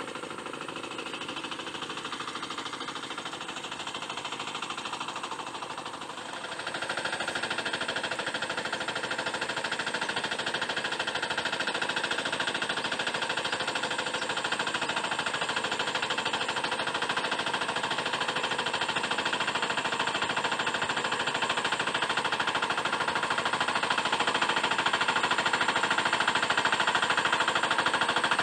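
Two-wheel hand tractor's single-cylinder diesel engine running under load while plowing a paddy, a fast, even chugging. It gets louder about six and a half seconds in and keeps rising slowly toward the end as the tractor comes closer.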